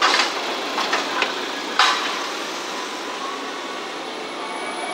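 Road traffic passing close by: a steady rush of tyres and engines, with a few sharp clicks in the first two seconds.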